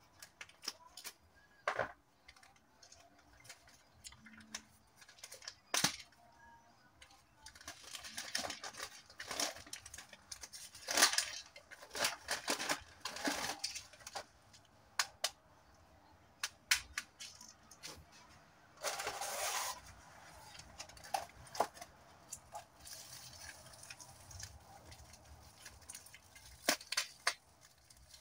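Paper and tape packaging being cut open with a knife and handled: bursts of crinkling and rustling, mixed with scattered sharp clicks and taps.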